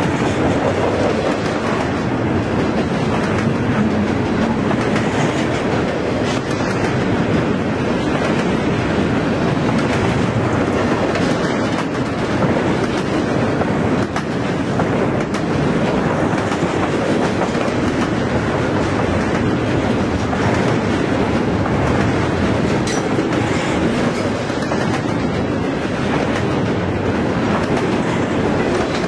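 Double-stack intermodal freight cars rolling past close by: a steady, loud rumble and clatter of steel wheels on the rails.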